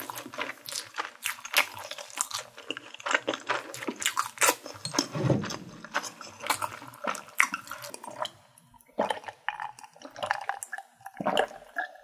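Close-miked wet mouth sounds of a person chewing. In the second half she drinks from a glass, sipping and swallowing.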